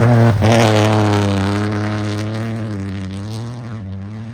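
Rally car engine under load, with a brief break in the note just under half a second in, then holding a near-steady pitch while it fades as the car moves away.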